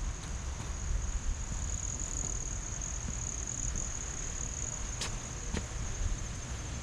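Steady high-pitched insect chorus, one unbroken trill, over a low outdoor rumble, with two sharp clicks about five seconds in.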